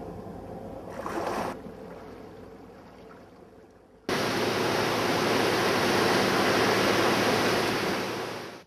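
Faint background for the first few seconds, then about four seconds in a loud, steady rush of wind and sea starts abruptly and cuts off suddenly near the end.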